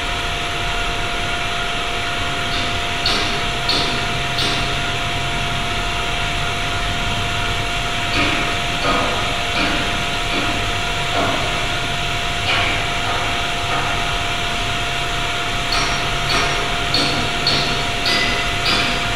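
Simulated binaural auralisation of an industrial hall: steady factory machinery noise with a constant hum and tone, made reverberant by the hall. Repeated hammer-on-steel strikes come in about three seconds in and return near the end.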